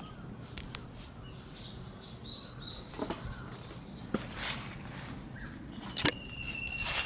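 A small songbird calling a quick run of short high notes, later a single long steady whistle, with footsteps and sharp snaps of twigs or leaves underfoot.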